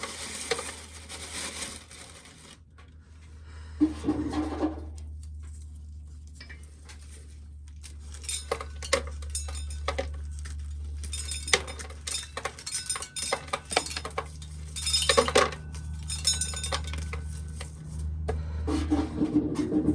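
Irregular clinking and rattling of metal and hard loose corn kernels at a corn sheller, thickest in the middle stretch, with a few louder scrapes and a steady low hum underneath.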